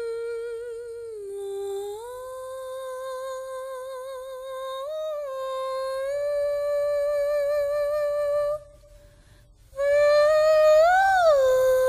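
A slow melody hummed in one voice-like tone, long held notes with vibrato. It breaks off for about a second and comes back with a short rise and fall in pitch.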